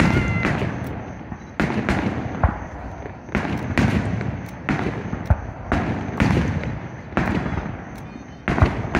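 Fireworks going off in a steady series of booms, about one a second, each trailing off in a rumble, with a few sharper cracks among them. A short rising whistle sounds at the start.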